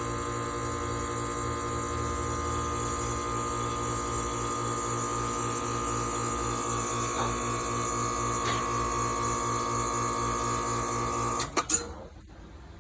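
Air-conditioning unit's compressor and condenser fan running with a steady hum, then shutting off abruptly with a few sharp clicks near the end: the unit short-cycling.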